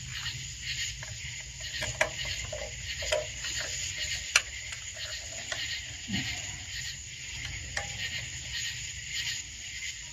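A steady, high-pitched chorus of night insects, with scattered clicks and knocks, the sharpest about four seconds in, over a low steady hum.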